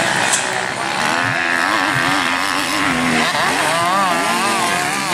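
Motocross dirt bike engines revving up and down on the track, the pitch rising and falling as the riders work the throttle. In the second half more than one engine is heard, their pitches crossing in quick swells.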